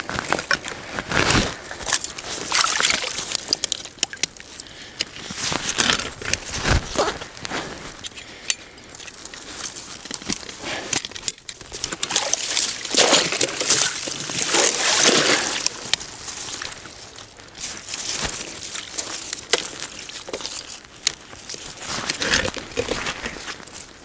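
Shallow marsh water sloshing, trickling and splashing in irregular bursts as gloved hands work down in it at a trap holding a caught otter.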